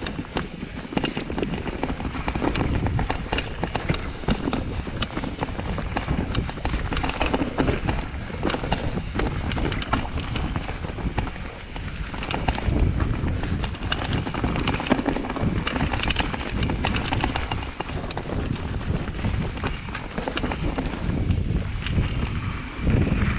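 Mountain bike ridden down a dirt forest trail: tyres rolling over dirt and leaves, with frequent short rattles and knocks from the bike over bumps and roots, and wind rushing over the microphone.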